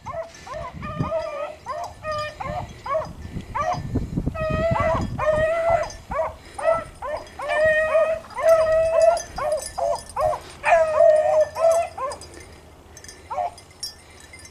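A pack of beagles baying over and over as they run a rabbit's trail, the hound voices overlapping. The calls die away after about twelve seconds, with one last bay shortly after.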